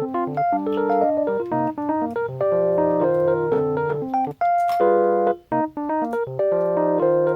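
Background music: a light electric-piano melody with chords, pausing briefly twice about halfway through.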